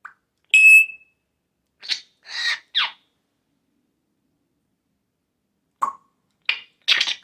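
African grey parrot making short calls: a brief, high, beep-like whistle about half a second in, then three quick raspy squawks, the last sliding down in pitch, and a few more short raspy calls near the end.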